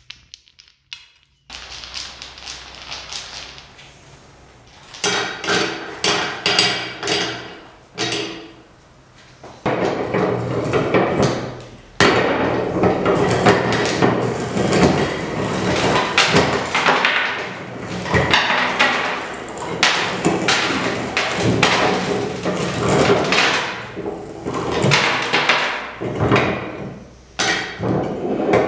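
Hard candies being crushed in a hand-cranked meat grinder: a few short spells of crunching and cracking, then loud, continuous crunching and crackling from about ten seconds in.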